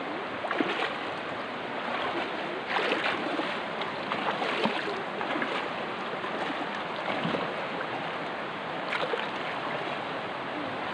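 River water rushing steadily, with many small splashes and trickles throughout.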